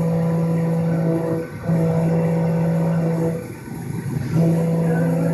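Milling machine cutting a metal turbojet engine ring under flood coolant: a steady humming tone that breaks off twice, briefly about a second and a half in and for about a second near the middle.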